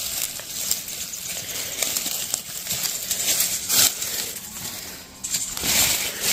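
Leaves and plant stems rustling and crackling as they are handled, with sharp little snaps; the rustling grows louder near the end.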